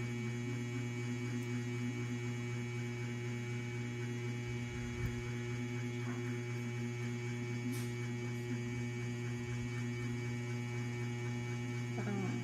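Steady electrical mains hum, a set of fixed droning tones holding level throughout. A couple of faint, brief clicks from handling a glass ampule sound over it, the sharpest about eight seconds in.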